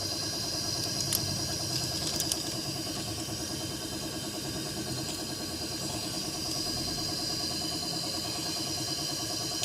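Toyota 4A-FE four-cylinder engine idling steadily, with a steady high hiss running over it. The mechanic takes the hiss for a leak ('singaw') that should not be there.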